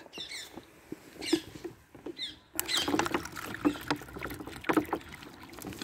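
Water pouring from a plastic 2-litre bottle into a cut-off plastic bottle bowl, splashing and gurgling. It starts about two and a half seconds in and runs on.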